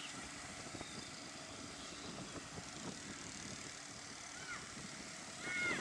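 Outboard motor of a small planing motorboat running steadily at speed, heard as a distant drone over the hiss of the water. Near the end a brief, louder high call cuts in.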